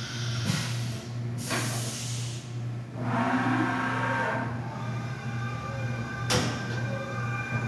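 Haas VF-5 CNC vertical machining center running with its axes moving, a steady hum under whirring that swells and fades as the spindle head travels, with a brief whine midway and a sharp click about six seconds in.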